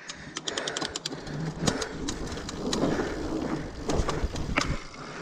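Fat-bike tyres (27.5 x 3.8 inch, run at low pressure) rolling over pine-needle-covered dirt singletrack, with the bike rattling over the ground. A rapid run of clicks comes about half a second in, and a few knocks from bumps come around four seconds in.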